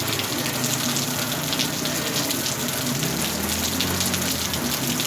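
Heavy rain pouring down steadily, a dense hiss of countless drops with water gushing and running. A faint low drone swells briefly past the middle.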